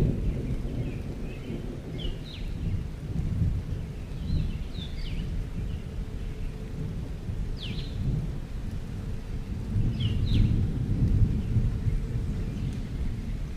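Outdoor nature ambience: a steady low rumble that swells and fades, with short high falling bird chirps every few seconds.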